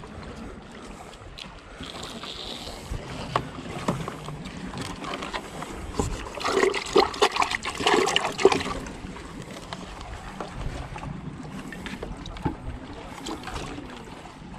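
Steady wind and sea noise with a few sharp knocks. About six seconds in come two or three seconds of louder knocking and splashing as a hooked fish on a rope is put into a bucket of water.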